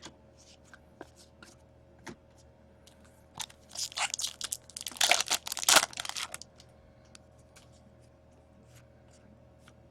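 Foil trading-card pack wrapper being torn and crinkled, with light clicks of card handling before it. The tearing and crinkling runs for about three seconds from just past the middle, loudest near its end.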